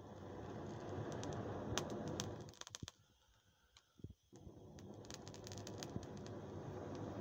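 A person blowing hard into a small campfire's glowing embers to get it to flame, in two long breaths, the second starting about four seconds in. Burning twigs crackle and pop during the blowing.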